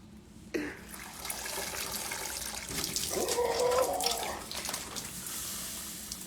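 Water running or pouring steadily, splashing into a sink or basin; the rush starts about half a second in and eases off near the end.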